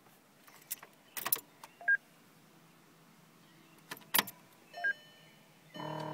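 Scattered clicks and two short beeps, then near the end a steady droning hum with several pitches starts up: the strange noise a 2006 VW GTI makes from behind the glove box when its battery is switched on.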